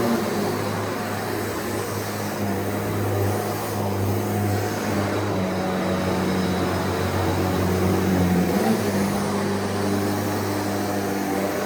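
Shark NZ780UKT upright vacuum cleaner running as it is pushed over carpet: a steady motor hum whose pitch shifts briefly about eight seconds in.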